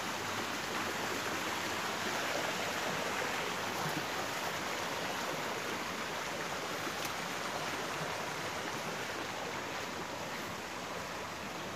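Flowing river water making a steady rushing sound.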